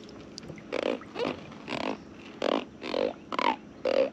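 A large catfish grunting as it is held out of the water: about seven short, rough croaks, roughly two a second.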